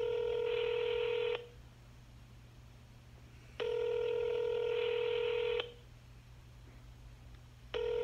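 Ringback tone of an outgoing smartphone call that has not been answered: a steady ringing tone in bursts of about two seconds with two-second gaps. One ring ends about a second and a half in, a second rings through the middle, and a third begins near the end.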